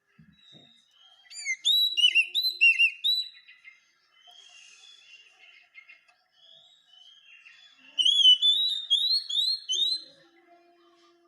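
Oriental magpie-robin singing: two loud runs of quick, clear whistled notes, one starting about a second in and one about eight seconds in, with softer warbling between.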